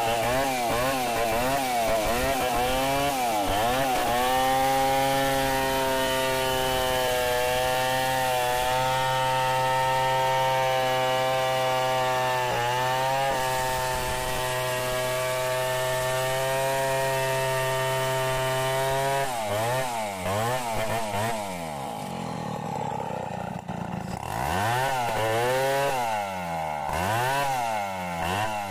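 Stihl 070 two-stroke chainsaw ripping lengthwise along a log in a freehand milling cut. Its engine pitch wavers up and down at first, holds steady for most of the cut, then drops and rises again over the last several seconds.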